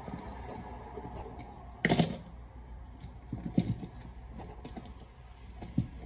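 Small clicks and scrapes of hand work on an electrical outlet: a bare copper ground wire being bent and hooked with pliers onto a GFCI receptacle's ground screw. There is one louder clatter about two seconds in, and a few lighter knocks later.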